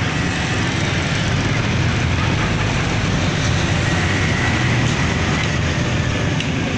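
Steady street traffic noise, with motorcycles passing by on the road.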